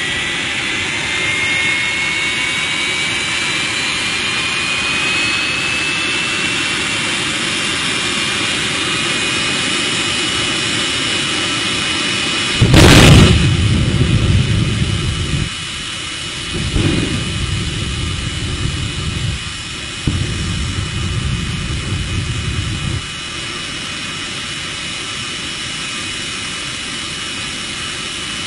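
Jet dragster's turbine whining, its pitch rising over the first several seconds, then the afterburner lights with a sudden loud blast about halfway through, followed by two more afterburner bursts of a few seconds each before it settles back to a steady whine. The afterburner flame is being fired at a car to set it on fire.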